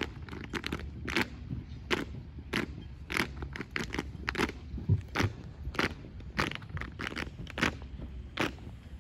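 Unarmed exhibition drill routine: sharp, irregular hand slaps, claps and foot stomps, a few each second, with a duller thump about five seconds in.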